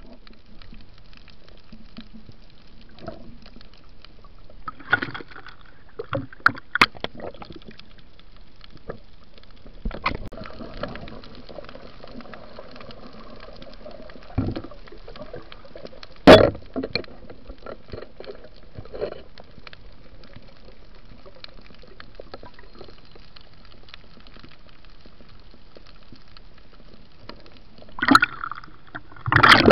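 Underwater recording: a steady faint water hiss with scattered sharp knocks. The loudest knock comes about sixteen seconds in, and a cluster of knocks comes near the end.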